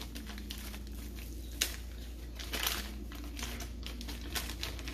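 Packet of powdered sugar crinkling as it is handled and opened, with a few light clicks, the sharpest about one and a half seconds in.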